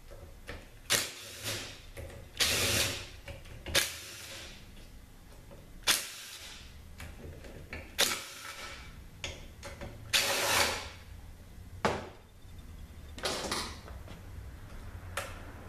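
Hand tools and sockets being handled against metal: irregular sharp clicks, clinks and short scraping rattles, about a dozen over the span.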